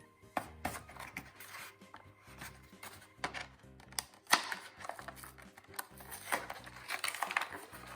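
Toy packaging being cut open with scissors and pulled apart: irregular snips, clicks and plastic crinkling, busiest in the second half, over quiet background music.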